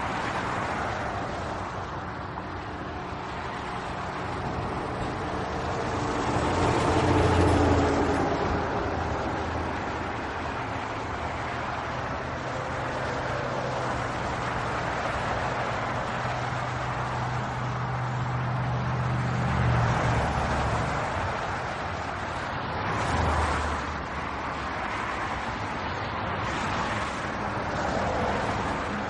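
Handheld car vacuum cleaner running: a steady motor hum under a rush of suction air that swells and eases several times.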